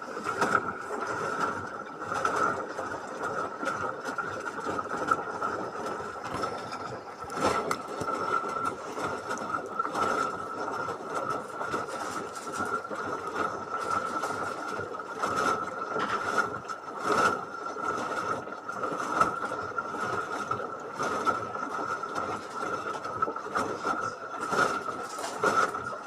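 LG washing machine running a wash cycle, heard from inside the drum: a steady high whine under the swish of the tumbling load, with irregular knocks.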